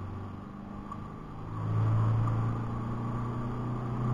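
Isuzu D-Max V-Cross's 3.0-litre four-cylinder turbo diesel pulling under hard acceleration in third gear, heard from inside the cab. It is a steady drone that grows louder about a second and a half in and climbs slightly in pitch near the end.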